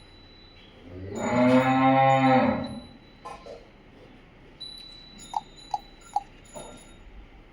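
Dairy cow mooing once, a single long low call of about a second and a half. A few seconds later come three short, sharp pips in quick succession.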